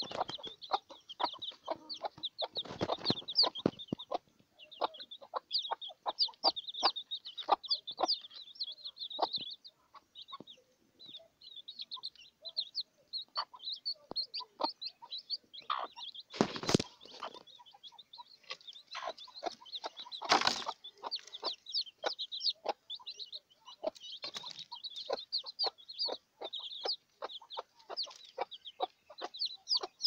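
A brood of young chicks peeping without pause in short, high, rapid cheeps, with a mother hen clucking low among them. Two brief louder noises break in, about 17 and 20 seconds in.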